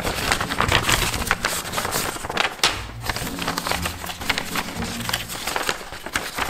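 A sheet of paper being unfolded and handled, crackling and rustling loudly, over background music.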